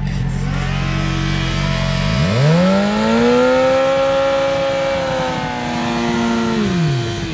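600 cc inline-four sport bike engine idling, then revved sharply about two seconds in and held at high revs for about four seconds before dropping back to idle near the end.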